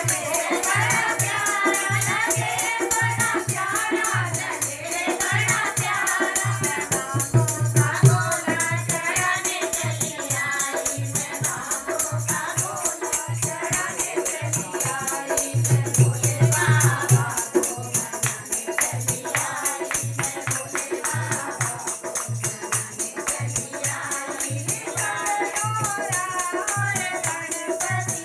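Hindi devotional song (bhajan): voices sing a melody over a steady rhythmic beat, with a rattling shaker-like percussion throughout.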